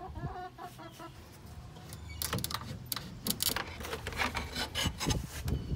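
Scratchy rustling and rubbing against the wooden boards and straw bedding of a chicken coop, a run of quick rough strokes from about two seconds in. A hen clucks softly at the start.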